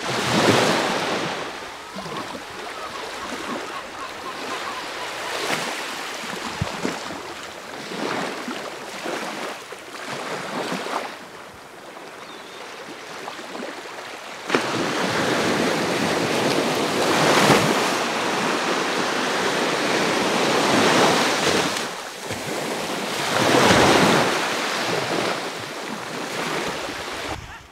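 Small sea waves washing onto a sandy shore, the surf swelling and falling every few seconds, with wind blowing across the microphone. The noise jumps suddenly louder about halfway through.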